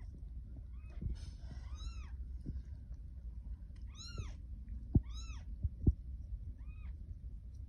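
Newborn kitten mewing: about five short, high-pitched mews, each rising and falling in pitch. Two dull knocks come about five and six seconds in.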